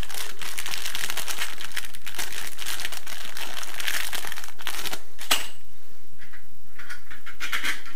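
Small clear plastic bag of screws crinkling as it is handled and opened to get out a long screw, with a sharp click a little after five seconds in.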